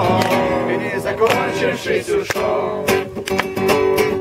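Acoustic guitar strummed steadily between verses of a group sing-along, with the voices' last held note of the chorus dying away in the first second.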